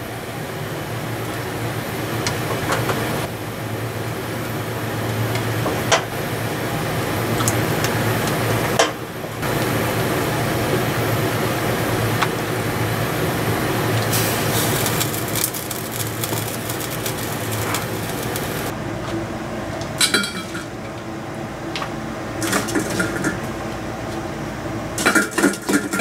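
A pot of soup with vermicelli boiling on a stove, a steady hiss and low hum. About halfway through, liquid seasoning is poured into the pot and splashes. After that it is quieter, with a few clinks of dishes and utensils.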